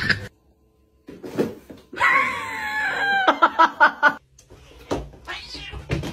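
Domestic cat meowing: a long, drawn-out yowl that falls in pitch, then a quick run of short cries, and another short falling meow near the end.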